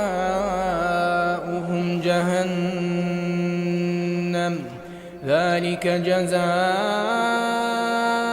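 Male Quran recitation in melodic tajweed style: a long drawn-out chanted phrase, held on steady notes. The voice pauses briefly for breath just under five seconds in, then rises back into the chant.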